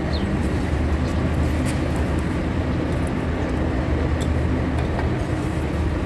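A vehicle engine running steadily, a constant low hum, with a few faint light clicks over it.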